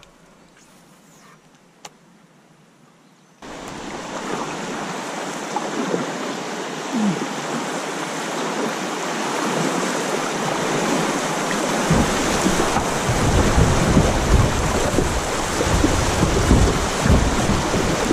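Rushing, splashing water of a river rapid as a kayak runs through it, cutting in suddenly about three seconds in after near quiet. Heavy low rumbling buffets join in about two-thirds of the way through.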